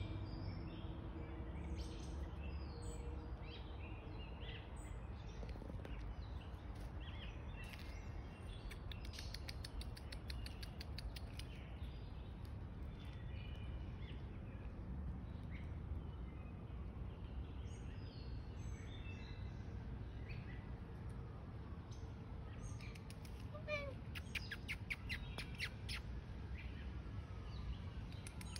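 Small birds chirping here and there over a steady low rumble, with a fast run of high clicks about ten seconds in and again near the end.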